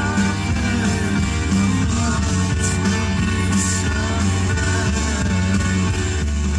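Hard rock music with electric guitar and bass, and a voice singing over it.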